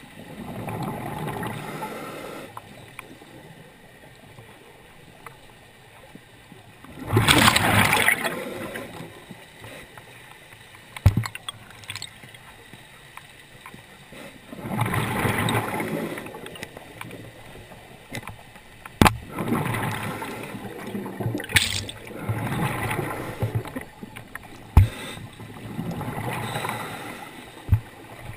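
Scuba diver's regulator underwater: exhaled bubbles rush out in bursts of a second or two, about every five to seven seconds, with a few sharp clicks between them.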